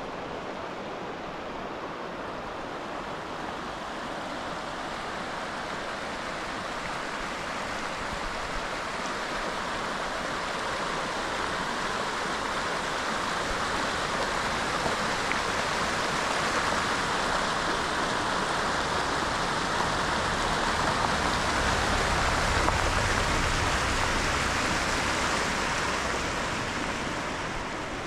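Rushing water of a mountain stream, a steady hiss that swells through the middle and eases off near the end.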